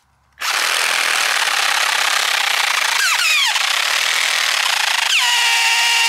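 A Ridgid 18-volt Gen 5X cordless reciprocating saw with a brushed motor, starting up half a second in and sawing through a dead log with a steady harsh rasp. About three seconds in a whine slides down in pitch, and a little after five seconds a steady high whine sets in over the cutting: the sounds of the worn-out saw failing.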